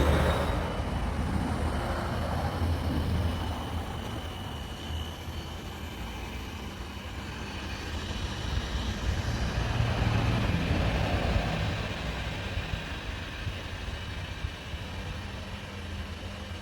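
Xiaomi Mijia 1C robot vacuum running as it vacuums and mops a dusty floor: a steady motor hum with a thin high whine, growing louder about ten seconds in and then fading.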